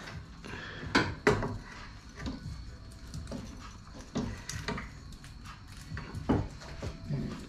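Scattered knocks and clunks of metal parts being handled in a car's engine bay, with two sharp knocks about a second in, more around four seconds, and the loudest a little after six seconds.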